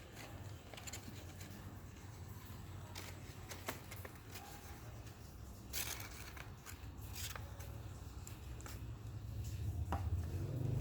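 Paper rustling and crinkling in scattered short bursts as folded paper pieces are handled, glued and pressed together, over a low steady hum.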